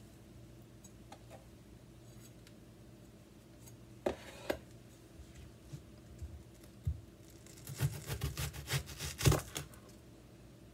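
Chef's knife cutting through a red onion and knocking on a plastic cutting board: two light knocks about four seconds in, then a quick run of crisp cuts and knocks in the last few seconds, the loudest near the end.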